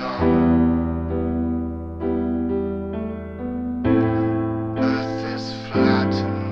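Music played on an electric keyboard: sustained chords over a deep bass, changing about every second, with a sharper, brighter entry about four seconds in.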